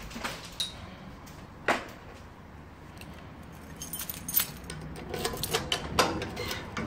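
A bunch of keys jangling and a key working in the cylinder lock of a metal gate, with a string of sharp metallic clicks and knocks. There is a loud knock about a second and a half in, and a cluster of jingling and clicks toward the end.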